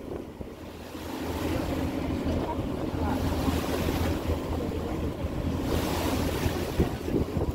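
Passenger ferry under way: its engine drones steadily underneath water rushing past the hull. Wind gusts on the microphone about a second in and again near the end.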